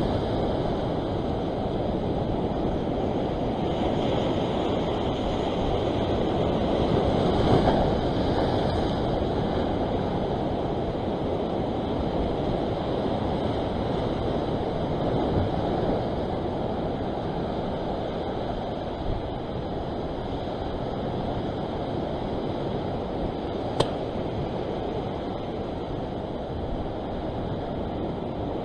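Sea surf washing over a rock ledge: a steady rush of breaking waves that swells a couple of times in the first third. A single sharp click sounds about three-quarters of the way through.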